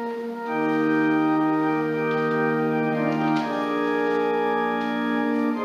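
Church organ playing slow, sustained chords at the opening of a Catholic hymn; a fuller chord comes in about half a second in and the harmony shifts a little past the middle.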